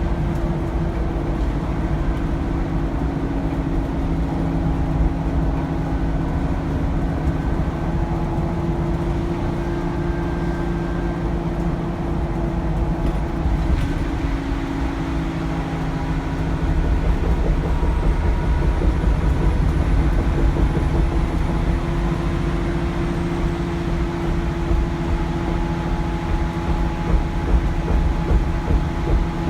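Alexander Dennis Enviro400 double-decker bus under way, heard from inside: its Cummins ISBe diesel engine runs steadily with a deep road and body rumble. Around the middle the sound grows louder and a faint, very high turbocharger whistle rises and falls.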